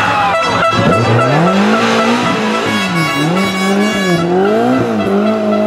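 BMW M3 E30 Group A rally car's 2.3-litre four-cylinder engine revving hard through a sliding corner, the revs rising and falling several times in quick swoops. Tyre squeal runs through the slide for the first four seconds or so.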